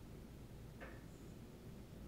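Near silence: faint room tone with a steady low hum and one brief faint sound a little under a second in.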